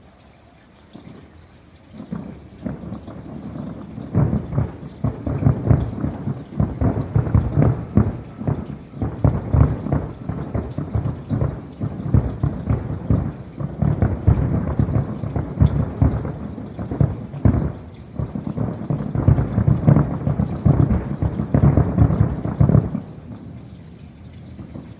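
Distant fireworks display: a dense barrage of bursts whose booms run together into a rolling, thunder-like rumble. It starts about two seconds in and stops suddenly shortly before the end.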